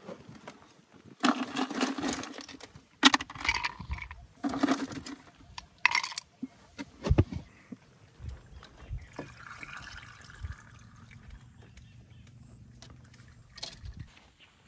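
A hard plastic cooler, a Mobi Garden Arctic Ice 17L, being handled: several loud bursts of knocking and scraping over the first six seconds. Then, about nine seconds in, water runs from a jug's spigot into a cup for a second or so.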